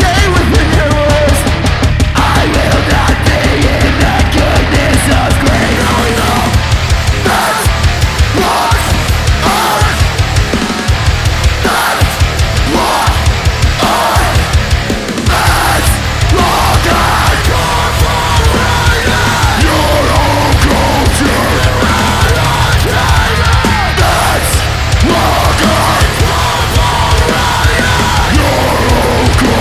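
Loud, aggressive heavy rock music, with a stretch of stop-start hits in the middle where the band cuts out briefly about once a second.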